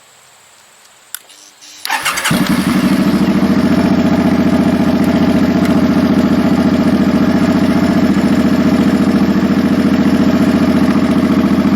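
Suzuki Boulevard M50's V-twin engine starting about two seconds in, catching almost at once, then idling steadily. It runs on the newly fitted battery while the charging voltage reads about 14.3 volts, a sign that the alternator is charging.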